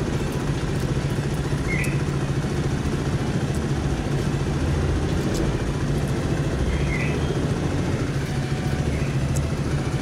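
Honda XR Tornado 250's single-cylinder four-stroke engine idling steadily while the bike stands still, with a few faint clicks over it.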